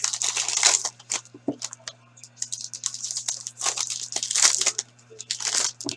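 Card pack wrappers being torn open and crinkled in a run of rustling bursts, with cards shuffled between them. A faint steady electrical hum sits underneath.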